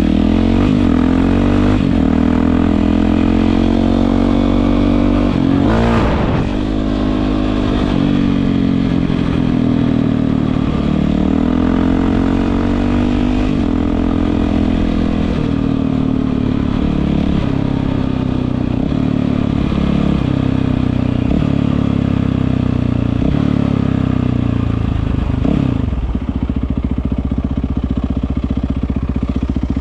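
Yamaha WR450F's single-cylinder four-stroke engine through an Akrapovič aftermarket exhaust, revving up and dropping back again and again as the bike is ridden. There is a sharp clatter about six seconds in, and near the end it settles into a steadier, lower running note.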